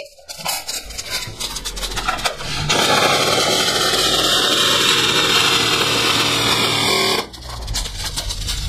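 G&G CM16 Carbine airsoft electric gun, powered by a 9.6 V NiMH battery, firing full-auto in long continuous strings. The audio is played at double speed, so the rattle is quicker and higher than at real speed.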